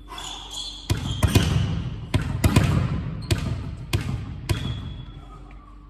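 A volleyball being hit and bouncing: a string of about nine sharp smacks between one and four and a half seconds in, echoing around a large gym hall.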